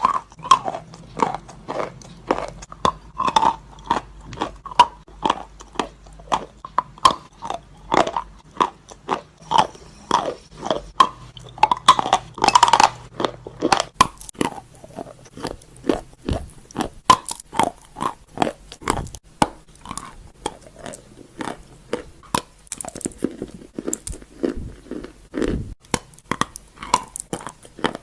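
Wet chalk being bitten and chewed close to the microphone: a steady run of crisp, wet crunches, two or three a second, with one louder bite a little before halfway.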